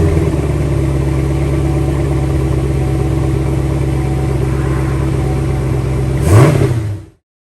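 Chevrolet Camaro SS's 6.2-litre L99 V8, with a K&N Typhoon cold air intake fitted, idling steadily just after starting. Near the end the engine gives one short rev that rises and falls, then the sound cuts off suddenly.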